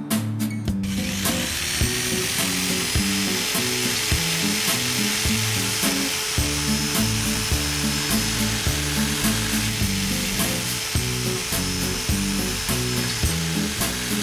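Film score music: a low plucked melody moving in steps. About a second in, a steady high rasping noise sets in underneath it and continues.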